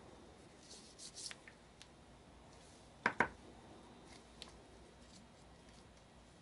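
Gloved hands handling a small two-cell 18650 battery pack: light rubbing and scraping, then two sharp knocks close together about three seconds in, with a faint tick a little later.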